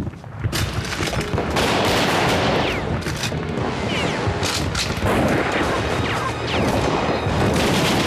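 Rifle gunfire in a battle, many shots overlapping in quick succession. It begins about half a second in and goes on steadily.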